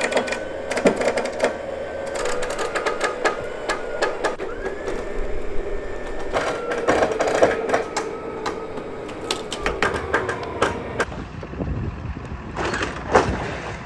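Wrecked Land Rover Discovery being winched up a tilt-deck car trailer: a steady motor whine under many sharp clanks and knocks of metal. Near the end the sound changes, with a few louder knocks.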